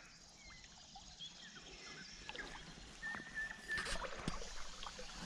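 Small birds chirping and whistling, with one held whistle a little past three seconds in, among faint clicks and a short rush of noise just before four seconds.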